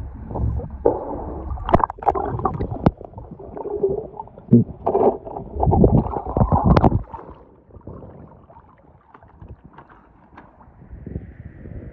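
Swimming-pool water splashing and gurgling as an arm plunges under the surface and pulls a toy truck out, in irregular loud surges that die down about seven seconds in.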